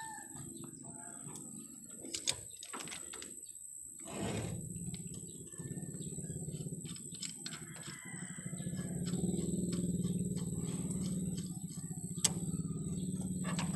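A few sharp metallic clicks from hand tools on the steering linkage, over a steady high thin tone and a low hum that swells about halfway through.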